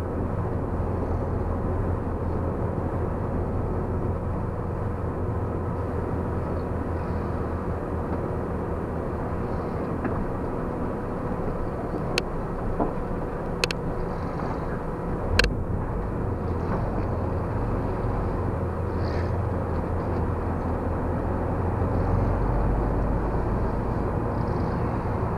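Box truck's engine and road noise in the cab as it drives slowly, a steady low rumble. Three or four sharp knocks come about halfway through, the last the loudest.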